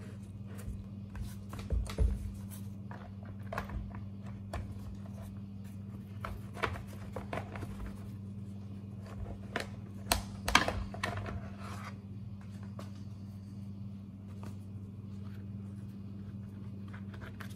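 Plastic clicks, scrapes and light knocks as the top and air filter covers of a Craftsman chainsaw are worked loose and lifted off by hand, the sharpest knocks about two and ten seconds in. A steady low hum runs underneath.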